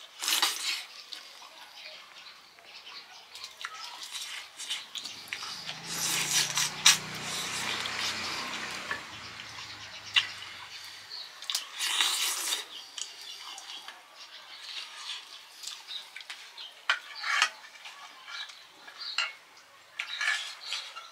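Eating by hand from steel plates: fingers scraping and mixing food on the metal, with scattered small clinks and wet mouth sounds. A faint low hum runs for a few seconds around the middle.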